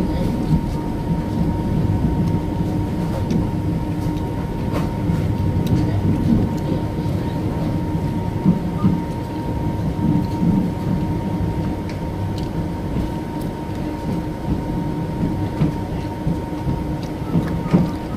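Running noise inside a new sleeper carriage of a moving passenger express train: a steady rolling rumble with a constant hum and scattered light clicks.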